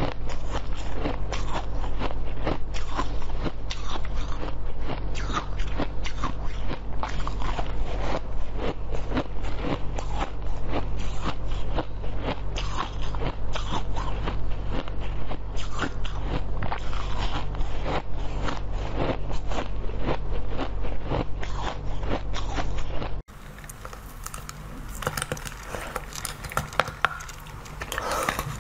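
Close-up eating: dense, rapid crunching and biting of hard pink balls, over a steady low hum. About 23 seconds in it cuts to quieter, sparser bites of a white strawberry.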